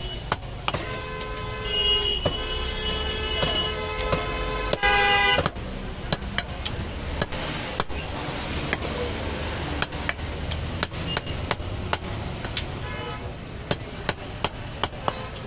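Sharp knocks of a butcher's cleaver striking goat meat and bone on a wooden chopping block, at an irregular pace. A vehicle horn honks for a couple of seconds near the start, then gives a louder short blast about five seconds in.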